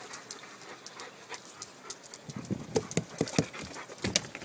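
Labrador retriever breathing and sniffing in quick short puffs, about four a second from around halfway through, with another sharp puff near the end, as it noses at a treat.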